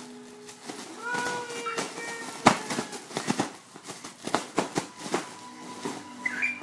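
Clear cellophane wrapping crinkling as it is handled, in a run of irregular crackles with a sharp louder one about two and a half seconds in.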